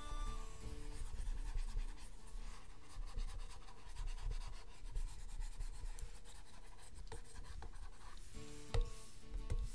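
Stylus scratching and tapping on a drawing tablet, with a couple of sharper taps near the end. Concertina background music fades out at the start and comes back near the end.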